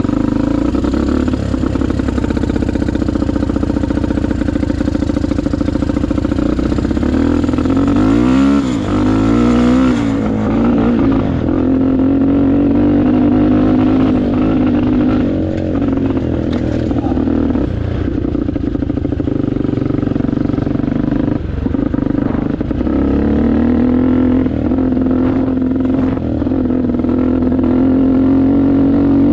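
Honda XR250 dirt bike's single-cylinder four-stroke engine running under way, its pitch rising and falling about eight seconds in as the throttle is worked, then holding fairly steady with small changes in speed.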